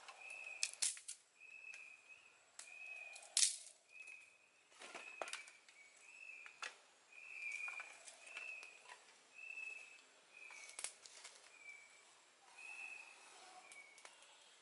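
Dry sticks and twigs snapping and clattering as they are broken and laid over a fire pit, with one loud snap about three seconds in. Behind it an animal's short high call repeats about once a second.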